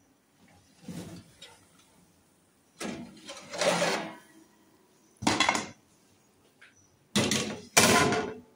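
Round aluminium baking tray scraping and clattering as it is pulled out of the oven and set down on the gas stove, in six short bursts of noise, the last two the loudest.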